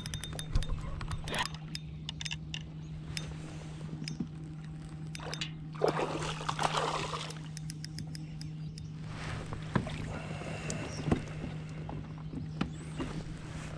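Fishing reel clicking as a largemouth bass is reeled in to the side of a kayak. About six seconds in, water splashes as the fish is grabbed and lifted out by hand, with a smaller splash near ten seconds. A steady low hum runs underneath.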